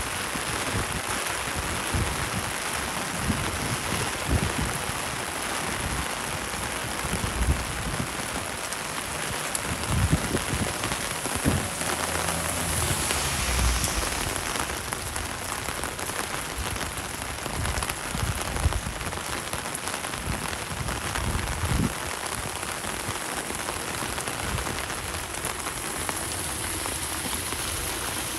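Steady rain falling on a city street, an even hiss, with irregular low thumps throughout and a brief swell in the hiss about halfway through.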